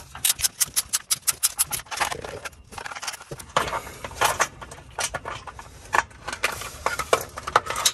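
Hand ratchet clicking as the 10 mm top bolt of an exhaust heat shield is backed out: a quick regular run of clicks in the first second and a half, then scattered clicks and light metal taps.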